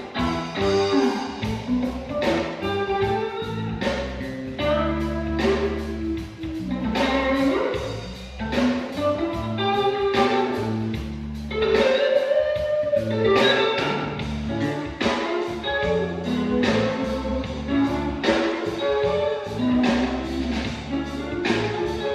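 Reggae band playing an instrumental break without vocals: guitar over a moving bass line and a regular drum beat.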